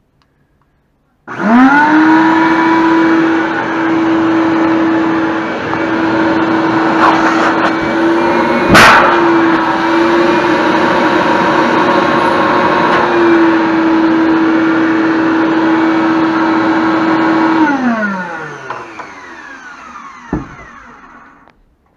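Shop vac motor starts with a rising whine and runs steadily, pulling through a 55-gallon steel drum dust separator. About nine seconds in a single loud pop: the drum's steel lid being sucked down tight by the suction. Near the end the vac is switched off and winds down in falling pitch, and a smaller knock follows as the lid pops back out.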